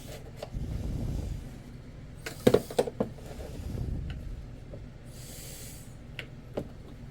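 Hands fitting a brass stuffing tube and metal strut to a fibreglass RC boat hull: rubbing and shuffling, a quick cluster of sharp clicks and knocks about two and a half seconds in, a few lighter ticks, and a short soft hiss about five seconds in.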